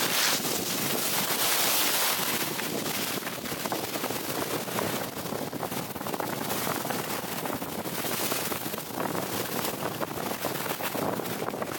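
Skis hissing and scraping over groomed snow on a downhill run, mixed with wind rushing over the camera's microphone; the noise swells and fades, loudest in the first couple of seconds.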